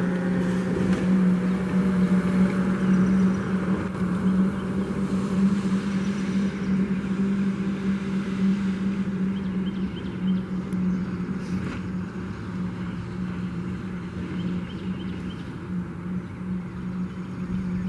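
Fire engine's diesel engine running as the truck drives away, a steady low hum and rumble that slowly fades with distance.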